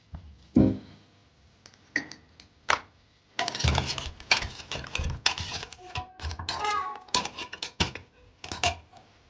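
A quick series of clicks and knocks, scattered at first and then dense in the middle, like hands handling hard objects in a small room. A short wavering pitched sound comes about two thirds of the way in.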